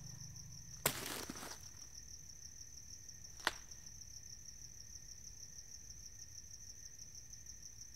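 Crickets chirping in a steady, pulsing high trill. A brief swishing rustle comes about a second in, and a single sharp click about three and a half seconds in.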